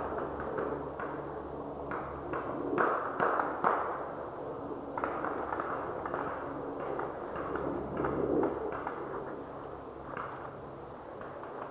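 Paintball markers firing: a scattered, irregular series of sharp pops, most of them about three to four seconds in, with a few more later.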